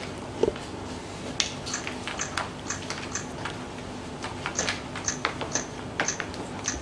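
Camera shutter clicking about a dozen times in irregular quick succession as a series of photos is taken, over a faint room hum.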